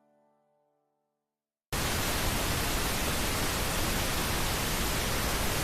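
The last chiming notes of a jingle die away, then after a second of silence a loud, steady hiss of TV static cuts in suddenly, the sound of changing the channel.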